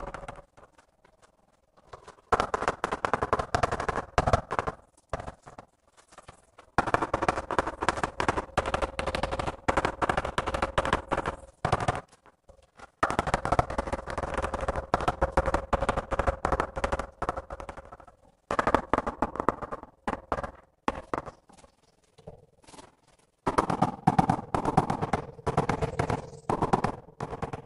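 Mallet tapping rapidly on 50×25 ceramic wall tiles, bedding them into the tile adhesive. The taps come in fast runs a few seconds long, with short pauses between.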